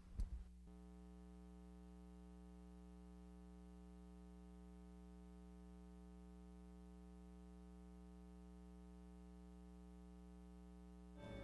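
Near silence with a faint steady hum. Music begins to come in right at the end.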